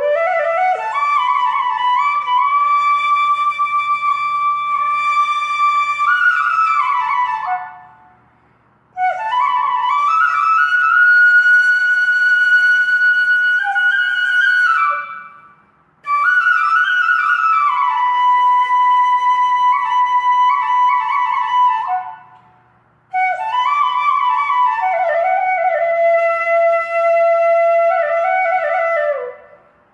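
Background music: a slow solo flute melody of long held and gliding notes, played in four phrases with a brief pause between each.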